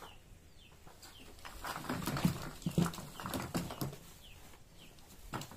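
A bird chirping repeatedly in short, falling chirps. In the middle, louder rustling and knocking of bags and goods being handled.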